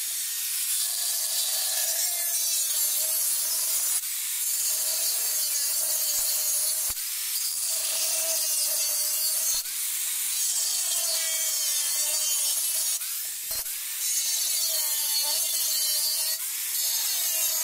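Electric angle grinder with an abrasive cut-off disc cutting into a cement shell: a steady loud grinding hiss over the motor's whine, which sags and recovers again and again as the disc bites and eases. It briefly lets up a few times and stops suddenly at the end.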